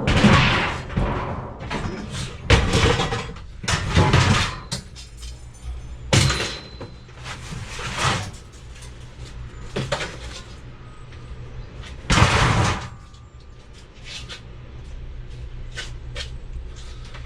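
Pieces of scrap metal being thrown down one after another, about seven loud clattering crashes a couple of seconds apart, over a steady low hum.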